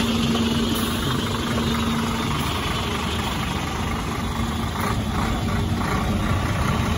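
Scania P360 truck's diesel engine idling steadily.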